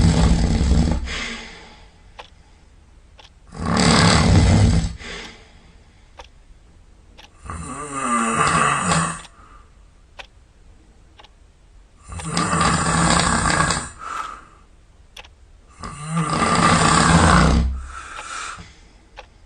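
Loud snoring: five long, rough snores about four seconds apart, each lasting one to two seconds.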